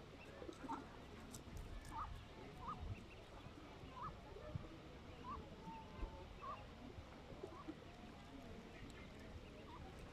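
Mallard ducklings giving short, soft peeps, scattered about once a second, over a low steady rumble of outdoor background noise.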